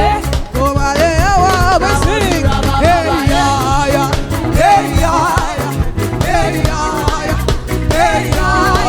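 Live upbeat praise-and-worship band music with a steady bass-driven beat and a melodic vocal or instrumental line over it.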